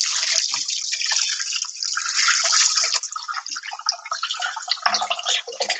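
Water running from a kitchen tap into the sink as sticky bread dough is rinsed off the hands under it, a steady splashing hiss.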